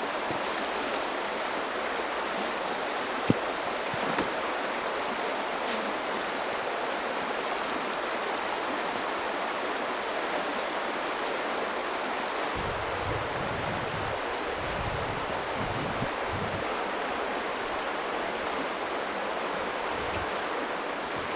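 River water rushing steadily, with a sharp click or two in the first few seconds and some low rumbling in the middle.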